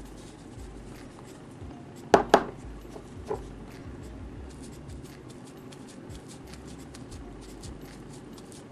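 Soft patting and rubbing of a powder puff on a latex bald cap, a run of small faint clicks. About two seconds in come two sharp knocks in quick succession, the loudest sounds, and a lighter knock a second later.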